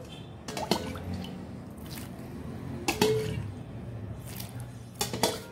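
Hands mixing and squeezing wet, shaggy flour-and-water dough in a metal pot: soft sticky squelching, with a few sharp slaps about a second, three seconds and five seconds in. The warm water is still being worked into the flour, so the dough is not yet smooth.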